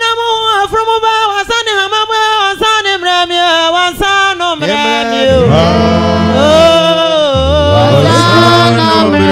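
Ghanaian church gospel song: singing over music in a mid-paced old-tune style, with a low bass line coming in about halfway and the sound growing fuller.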